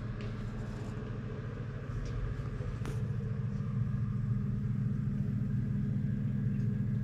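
Paint colour-mixing machine's motor running with a steady low hum, getting somewhat louder about two seconds and again about four seconds in, with a few light clicks.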